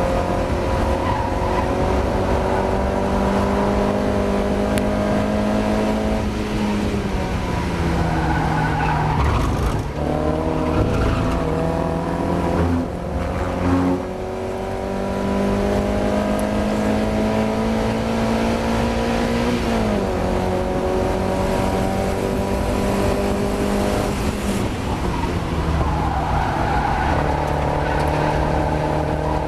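Mazda MX-5's four-cylinder engine under hard acceleration on a race lap. Its pitch climbs steadily in each gear and drops sharply at upshifts about six, ten, twenty and twenty-five seconds in, with a brief lift off the throttle around thirteen seconds.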